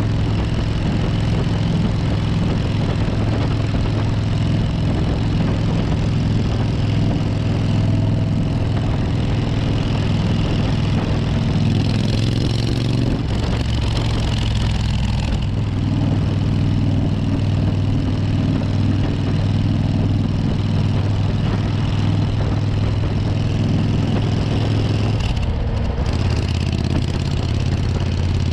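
Suzuki Intruder 1400's V-twin engine running steadily under way. Near the end the engine note drops and settles lower as the revs change.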